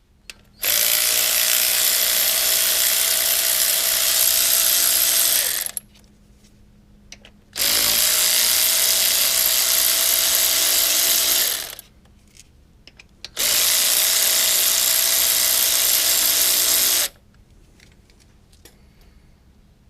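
A cordless power tool running in three long stretches of about four to five seconds each. The steady whine climbs slightly at the start of each run. It is spinning out the camshaft sprocket bolts, one run per bolt.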